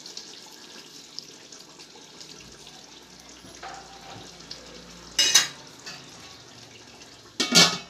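Aluminium pot of rice water heating on a gas burner, nearly at the boil, with a faint steady hiss. Two short, loud hissing bursts come about two seconds apart near the end.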